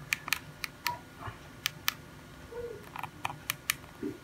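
Keypad buttons of a Nokia feature phone clicking as a SIM PIN is typed in: about ten short, sharp clicks in uneven groups.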